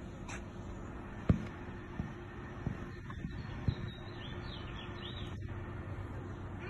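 Steady low background hum with a few dull knocks, the loudest about a second in, and faint bird chirps near the middle.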